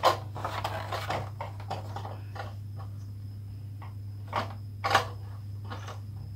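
Scattered short plastic clicks and knocks from an 18-inch ring light being handled, the loudest two a little past four and five seconds in, over a steady low hum.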